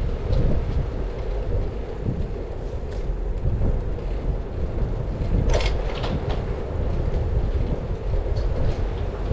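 Steady low rumble of a bicycle rolling on a smooth cycle path, heard through a handlebar-mounted camera, with a short spell of sharp rattling about five and a half seconds in.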